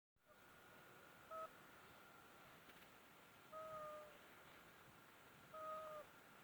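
Sleeping newborn baby snoring: a pitched, squeaky nasal snore on the breaths, three times about two seconds apart, the first very brief and the next two longer.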